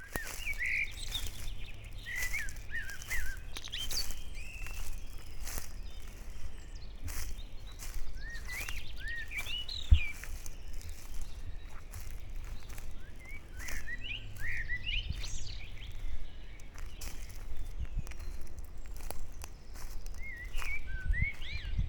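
Songbirds singing in short warbled phrases that come in bouts every few seconds, over a steady low rumble, with scattered clicks and one sharp knock about halfway through.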